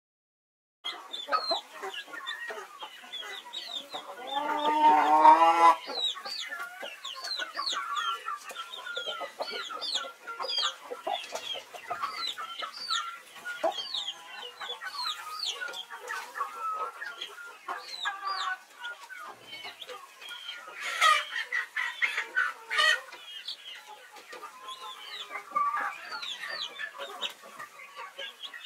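Chicks peeping in high, quick calls almost without pause, with a hen clucking among them, starting about a second in. A louder, drawn-out, lower hen call comes about four seconds in.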